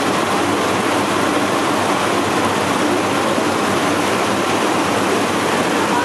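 WL 24 eddy-current vegetable washing machine running: a steady rush of churning, splashing water in its stainless-steel tank as lettuce is tumbled through it.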